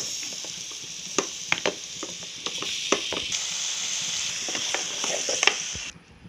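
Marinated chicken pieces sizzling in hot oil with frying onions in a metal pot, with a spatula scraping and knocking against the pot as they are stirred. The sizzle grows louder about two and a half seconds in and cuts off suddenly near the end.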